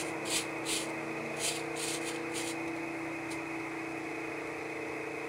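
Scattered pops and crackles from firecrackers going off inside a burning jack-o'-lantern, about half a dozen sharp snaps in the first couple of seconds that thin out to one last faint pop. A steady low hum runs underneath.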